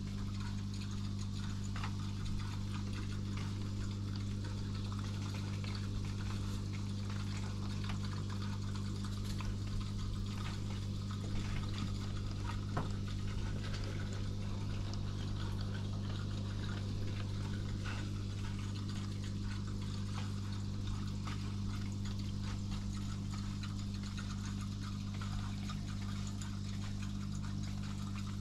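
Aquarium equipment running: a steady low hum from the tank's pump, with bubbling, trickling water and scattered faint small clicks.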